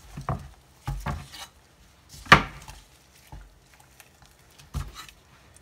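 A knife and raw chicken knocking on a wooden cutting board: a few scattered taps, with one sharp, loud knock a little over two seconds in.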